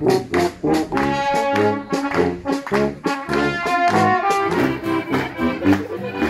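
Bavarian brass band music (Blasmusik) with tuba bass and trumpets, playing a steady oompah beat: low bass notes alternating with brass chords.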